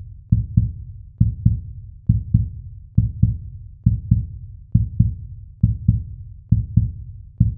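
Heartbeat-like sound effect: pairs of low thuds repeating steadily, about one pair a second.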